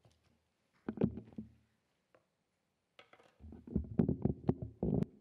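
Handling noise from a lectern's gooseneck microphone being grabbed and adjusted: a short cluster of low knocks about a second in, then a longer run of bumping and rubbing starting about three and a half seconds in.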